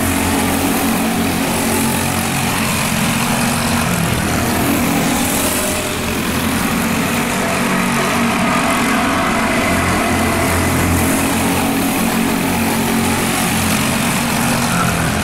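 Racing go-kart engines running at speed, a steady engine note with small shifts in pitch.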